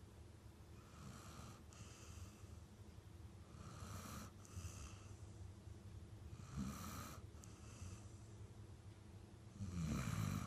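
Dog snoring in its sleep: about four snores, one every two and a half to three seconds, the last one near the end the loudest.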